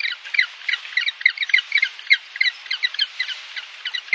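Penguins calling: a quick, uneven run of short high squawks, several a second.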